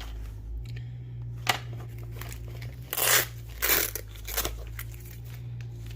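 A fabric side satchel being handled and looked over: a sharp click about one and a half seconds in, then a few short rustling, crinkling strokes around the middle, over a steady low hum.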